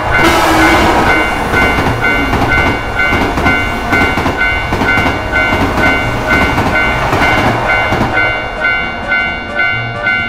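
Japanese level-crossing warning bell clanging steadily about twice a second while a train passes with a dense rumble and rhythmic wheel clatter.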